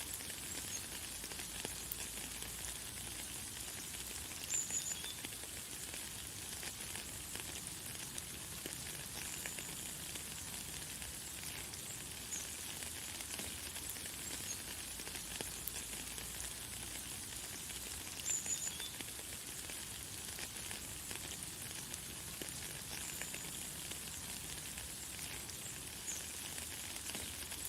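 Light, fine rain falling steadily as an even hiss, with short high bird chirps now and then, the loudest about four and a half seconds in and again about eighteen seconds in.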